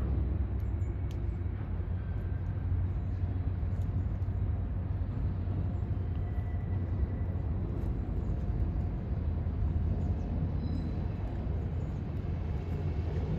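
TRRA diesel locomotive running as it moves slowly along the yard track with a cut of autorack cars, a steady low engine rumble.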